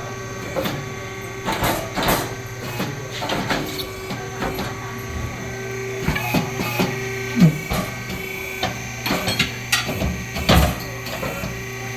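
Truck tire changer work: a steady machine hum with many irregular metal knocks and clanks of tools on the wheel and tire.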